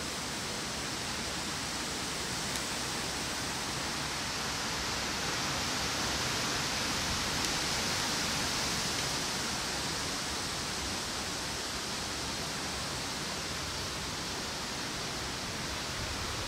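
Wind blowing through the leaves of a tree, a steady rushing hiss that swells a little about halfway through.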